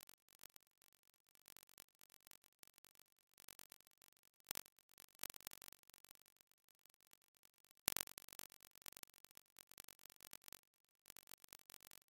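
Faint, intermittent rustling of a cotton shirt dress being handled on its hanger, with louder rustles about four and a half seconds in and again just before eight seconds.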